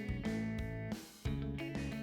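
Background music with guitar: strummed chords changing every half second or so, with brief breaks in the pattern.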